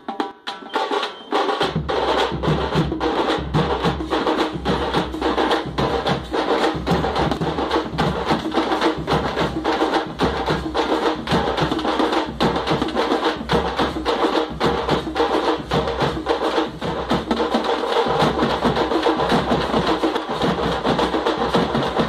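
Title music with a steady percussive beat of wood-block-like knocks and drums; a low bass layer comes in about a second and a half in.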